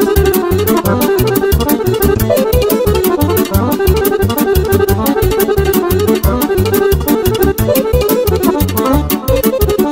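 Accordion playing a fast instrumental Romanian brâu folk-dance tune over a keyboard's bass and drum beat.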